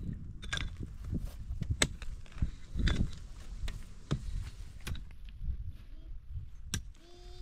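A pickaxe striking stony, dry ground, one sharp blow roughly every second as the soil and rocks are dug out.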